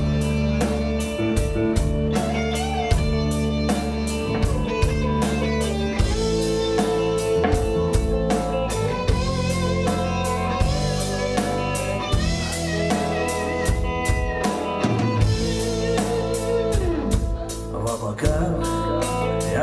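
Rock band playing an instrumental intro: guitar over a steady drum beat, with a held, wavering lead note about twelve seconds in.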